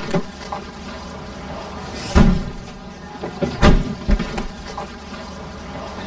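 A car idling, with car doors thudding shut: the two heaviest thuds come about two seconds in and just past halfway, with lighter knocks and clicks around them.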